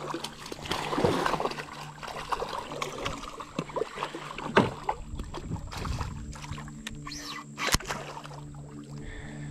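A hooked fish splashing and thrashing at the water's surface beside the boat while it is reeled in, in many irregular splashes. A steady low hum runs underneath.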